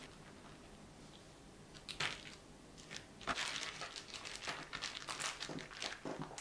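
Disposable plastic piping bag rustling and crinkling as it is handled and twisted shut, a short rustle about two seconds in, then steady crinkling through the second half.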